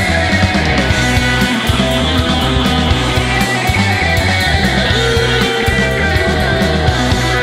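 Instrumental space rock played live by a full band, dense sustained notes over a steady, busy drumbeat.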